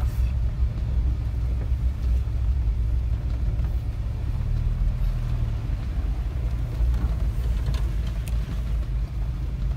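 Jeep Wrangler driving slowly over a sandy beach road, a steady low rumble of engine and tyres heard from inside the cabin, with a few faint knocks about seven seconds in.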